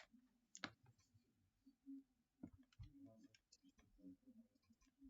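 A few scattered computer mouse clicks, faint and sparse, in near silence.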